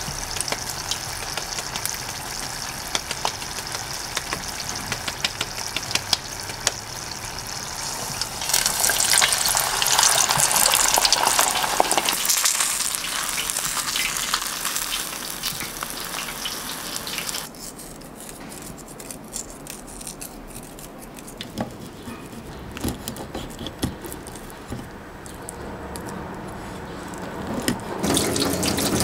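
Kitchen cooking sounds: a steady hiss dotted with crackles, loudest for a few seconds around nine to twelve seconds in. It drops suddenly to a quieter stretch of scattered clicks and ticks, then swells again near the end.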